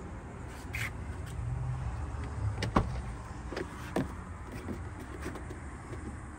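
Low steady rumble from handling and moving about a car's interior, with a few sharp clicks. The loudest click comes near three seconds in and a smaller one a second later.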